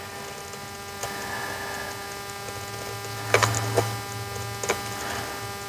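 Steady electrical hum, with a few light clicks and scrapes from a hook-blade razor tool cutting the RTV sealant along the seam of a metal ABS module housing.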